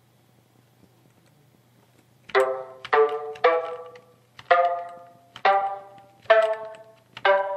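FM synth bell patch ("FM Ctrld Ringer") in Logic Pro X, played as a short run of single notes at different pitches, each struck and ringing away. The notes begin a couple of seconds in, about seven of them, roughly half a second to a second apart.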